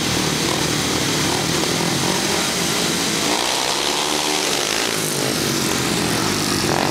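Several 500cc single-cylinder speedway motorcycles racing flat out around a dirt oval, their engines a loud buzz whose pitch rises and falls as the bikes pass through the turn.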